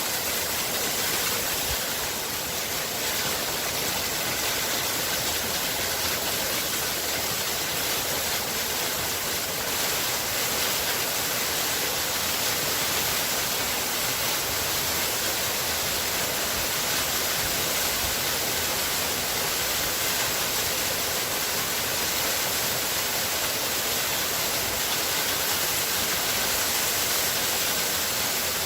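Waterfall: water falling steadily with an even, unbroken hiss.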